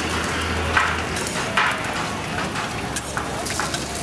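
Banana roti sizzling steadily as it fries on a flat steel griddle, with two scrapes of a metal spatula against the griddle in the first two seconds.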